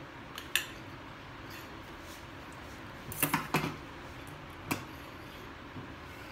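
Steel spoon and stainless steel bowl clinking as the bowl is stirred and handled on a kitchen counter: a single clink, a quick run of about three, then one more.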